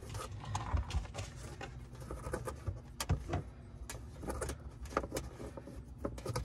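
Scattered light clicks, taps and rustles of a thin insulated wire being pushed and tucked into the gap behind a plastic car interior trim panel, over a steady low rumble. The sharpest clicks come about three and five seconds in.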